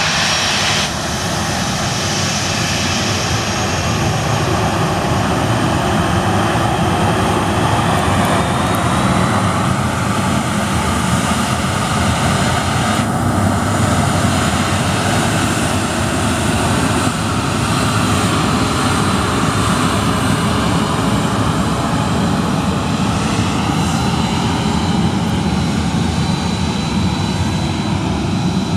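Jet engines of a Boeing 737 running steadily on the runway: a constant rush with a thin, high, steady whine over it.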